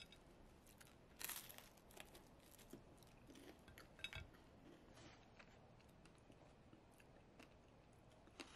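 Near silence, with a few faint crunches and clinks from a slice of toast being picked up and set back down on a ceramic plate; the clearest comes about a second in.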